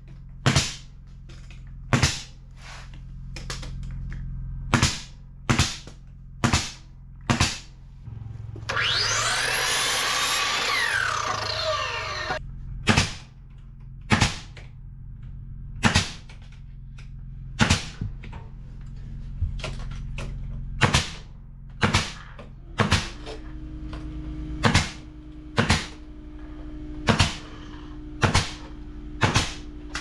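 Pneumatic nail gun firing nails into wooden baseboard trim: about twenty sharp shots, roughly one a second, in two runs. Between the runs comes a noisy stretch of about three seconds with sweeping pitches, and a steady low hum sits underneath.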